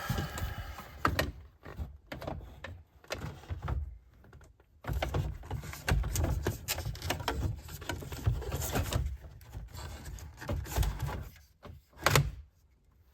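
Car stereo head unit being slid back into the dash: irregular scraping, knocks and clicks of plastic and metal, with a brief lull partway through and one loud sharp knock near the end.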